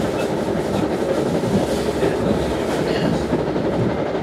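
Steady rumble of an NJ Transit MultiLevel coach running at speed over the rails, heard from inside the passenger cabin.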